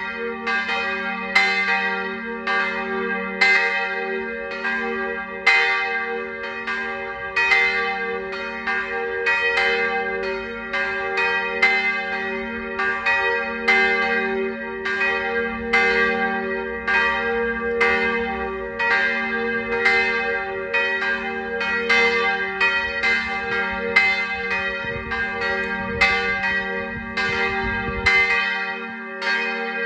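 Two swinging church bells ringing together to call to service. Their strokes come about twice a second and overlap, over a steady hum of the bells' sustained ring.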